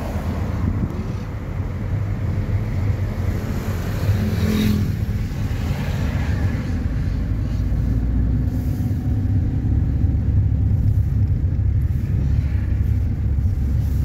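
A car driving, heard from inside the cabin: a steady low rumble of engine and tyres on the road. About four and a half seconds in there is a short, louder rush.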